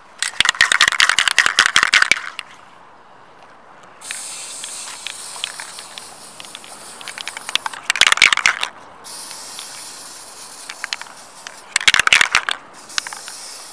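Aerosol spray paint can: the mixing ball rattling in three bouts of shaking, the first about two seconds long and the others shorter, with a steady hiss of paint being sprayed between the later bouts.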